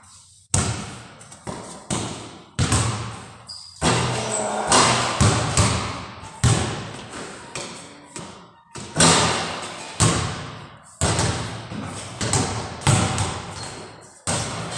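Basketballs bouncing on a hard floor: irregular thuds, about one or two a second, each ringing out with a long echo in a large, bare room.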